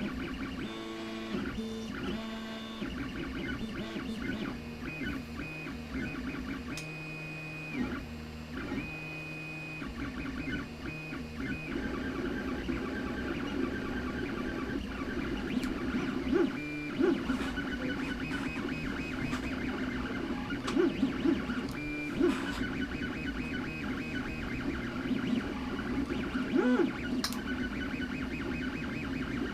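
3D printer printing, its stepper motors whining in held tones that jump to a new pitch with each move, with a few sharp clicks.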